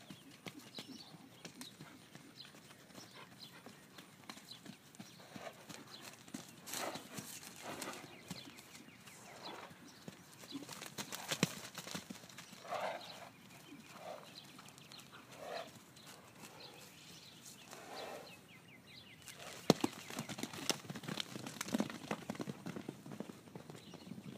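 Horses trotting and cantering on wet pasture grass: irregular hoofbeats and thuds, with a few short sounds from the horses around the middle.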